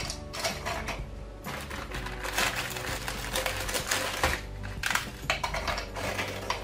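María biscuits being snapped by hand and dropped into a plastic chopper bowl: a quick, irregular run of small crisp cracks and clatters. Background music plays underneath.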